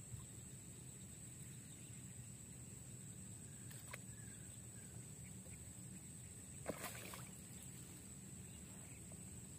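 Quiet waterside ambience: a steady low hum and a faint, steady high whine, with a couple of soft ticks and one short, louder knock with a brief splashy smear about two-thirds of the way through.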